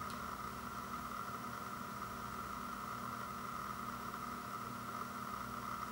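Steady background hiss with a faint constant hum: room tone, with nothing being handled.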